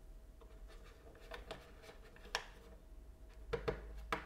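Light clicks and taps of fingers handling a plastic earbud charging case on a tabletop: a few separate knocks, the clearest about two seconds in and a quick cluster near the end, over a faint steady hum.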